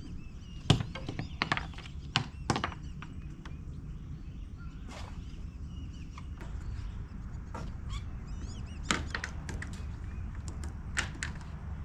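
Scattered knocks and thunks of crab-net gear against a wooden pier's railing and deck as the nets are thrown and tied off, the loudest near the start.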